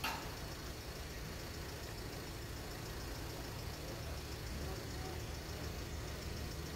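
Boat engine running slowly with a steady low rumble, with a brief click right at the start.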